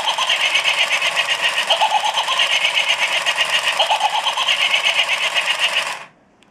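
Sound-activated plastic skull toy playing its electronic sound effect through its small speaker: a fast, even pulsing buzz with short rising tones over it every couple of seconds, cutting off abruptly about six seconds in.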